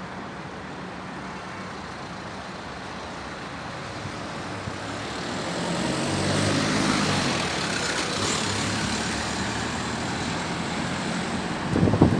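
Steady wind noise with a motor vehicle passing: its engine and road noise swell from about five seconds in and ease off after about nine seconds.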